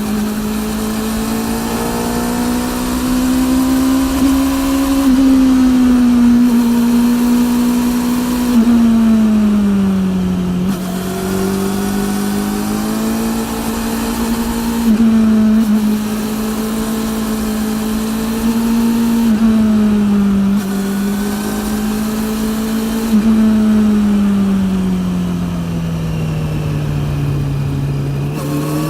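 Honda CB400's inline-four engine through a TSR E02 slip-on exhaust, running steadily on the move. The note rises and falls gently with the throttle, with a few quick jumps where the rider shifts gear, and it drops lower near the end as the bike slows. The drive chain's noise, which the owner says is very loud, runs beneath it.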